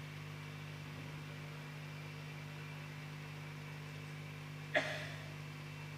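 A steady low hum, with one short sharp click near the end.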